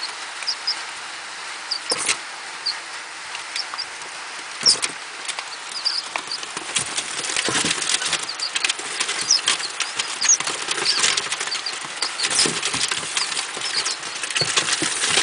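Day-old pheasant chicks peeping in short, high cheeps, with their feet scratching and pattering on newspaper. The pattering grows busier from about halfway through.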